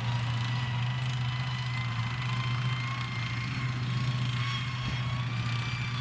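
Tank driving across rough ground: a steady low engine drone with faint high whining tones that rise slightly.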